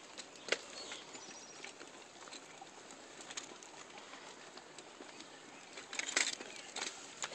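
A piece of carpet snagged in a tree, flapping and popping in the wind: irregular sharp pops over a steady rush of wind, with a cluster of louder pops about six seconds in.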